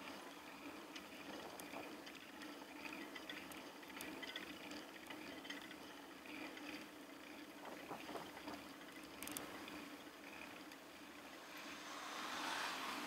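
Wind and road noise picked up by a handlebar-mounted camera on a moving bicycle: a steady hiss over a low hum, with light ticks and rattles. The noise swells for a second or so near the end.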